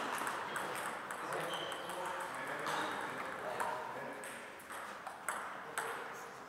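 Celluloid-style table tennis ball ticking off rackets and the table in a few separate sharp hits.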